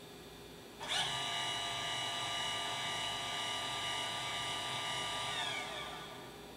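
Celestron CGX equatorial mount's drive motors slewing. After a pause, a steady whine starts about a second in, then falls in pitch as the mount slows and stops near the end. The pause and restart are part of the stop-start slewing the owner counts as the mount's fault.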